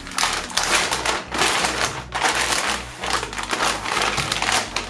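Clear plastic reusable vacuum storage bag crinkling in irregular swells as a spool of filament is slid inside and the bag is handled.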